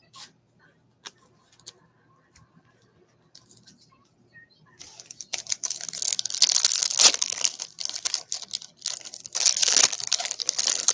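A Stadium Club baseball card pack's crimped wrapper being crinkled and torn open by hand, in two loud spells of crackling: one starting about five seconds in and another near the end. Before that, only a few faint clicks.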